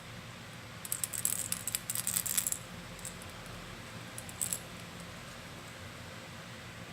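Light clicks and clinks from handling a small fishing lure and its packaging: a quick flurry for about two seconds, then a few scattered clicks.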